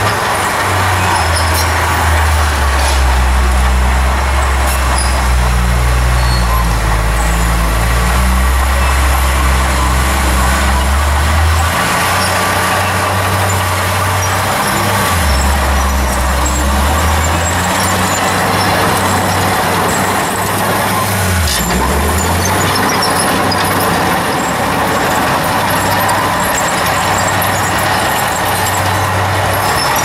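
Small Komatsu crawler bulldozer's diesel engine running under load as it pushes dirt. The engine note dips and recovers a few times, briefly dropping about halfway through and again about two thirds in.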